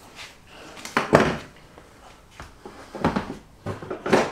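Hard plastic parts knocking and clattering as they are handled and rummaged for in a plastic storage tub: a few separate clunks, the loudest about a second in, more around three seconds and near the end.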